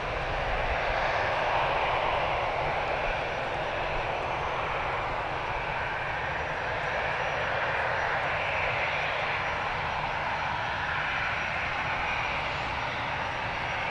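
Airbus A320-214's CFM56-5B turbofan engines running at low taxi power as the airliner rolls past: a steady jet rush with gentle swells and a faint high whine.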